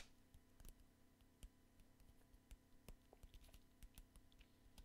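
Near silence with faint, irregular clicks, roughly two a second.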